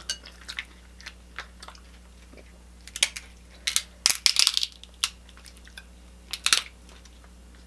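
Close-up eating sounds: shellfish shells cracking and crunching, with chewing. A few small clicks at first, then several sharp crunches in clusters from about three seconds in.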